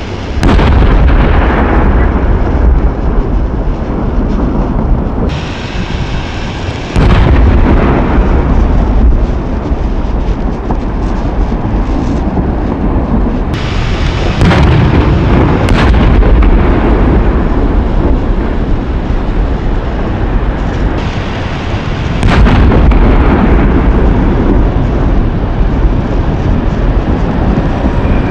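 150 mm (6-inch) aerial display shells bursting, about five sharp bangs in turn, each followed by a long low rumble as the report rolls away. Two of the bangs come close together near the middle.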